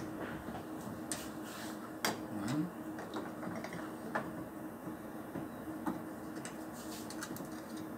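Screwdriver loosening the cover screws on a gas detector's enclosure: scattered light clicks and ticks of the tool against the screws and housing, with a short rising squeak about two and a half seconds in.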